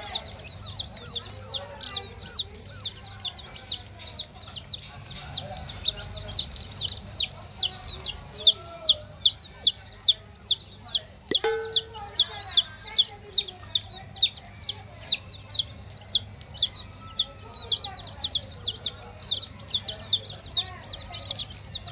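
Baby chicks peeping nonstop: a steady run of high, falling peeps, about two or three a second. There is one sharp click about eleven seconds in.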